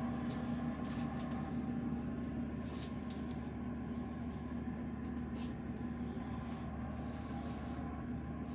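A steady low machine hum, with a few faint clicks over it.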